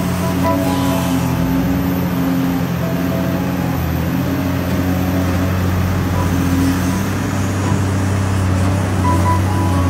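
Heavy diesel earthmoving machinery, bulldozers and a dump truck, running steadily with a constant low engine drone.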